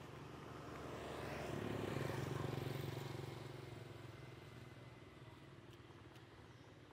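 A motor vehicle passing by: its engine noise swells to a peak about two seconds in, then fades away.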